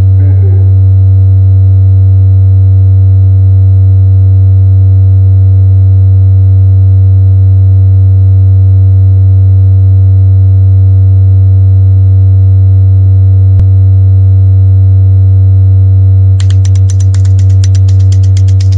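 A loud, steady low electronic drone, like a held synthesizer tone, with fainter steady tones above it. A single sharp click sounds once, and near the end a rapid high crackle of clicks starts over the drone.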